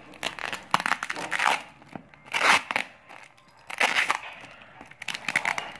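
Clear plastic wrapping on a parcel crinkling and crackling in a series of short bursts as hands grip and pull at it.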